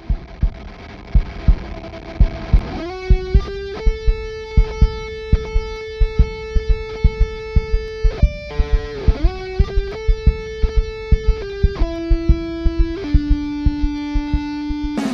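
Intro theme music: a held lead melody that steps and slides between notes over a steady drum beat.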